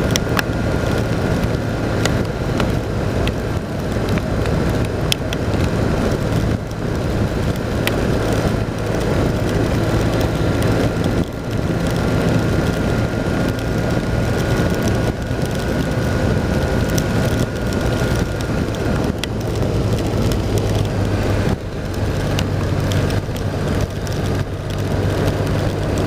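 BMW R1200 RT-P motorcycle's flat-twin boxer engine running steadily at road speed, under a heavy rush of wind and rain. Scattered raindrops tick against the bike or the rider.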